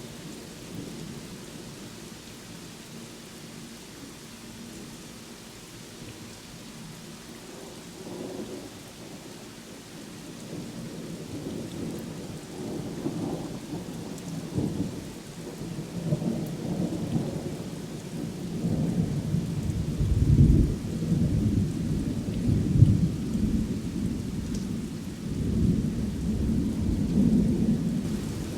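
Thunderstorm: steady rain with rolling thunder that builds from about a third of the way in and swells into its loudest low rumbles in the second half.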